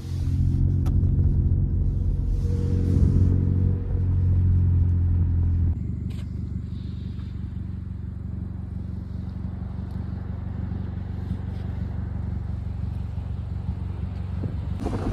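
Steady low drone of a car's engine and road noise while driving. It is louder for about the first six seconds, then drops suddenly to a quieter, steady hum.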